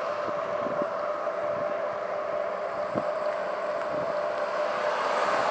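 Bike under way on a paved road: a steady hum with road and wind noise, and a few light knocks from bumps, the strongest about three seconds in.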